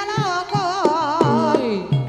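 Javanese gamelan music accompanying an ebeg dance: a singer's wavering, ornamented vocal line over drum strikes and struck metal tones.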